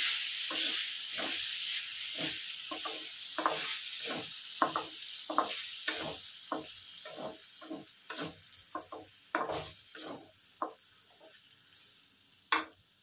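Soaked sago pearls sizzling in hot ghee in a metal kadhai, stirred with a wooden spatula that scrapes and knocks against the pan about twice a second. The sizzle dies down toward the end.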